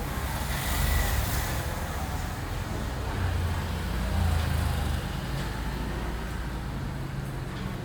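Engine running steadily with a low hum and a hiss of noise above it.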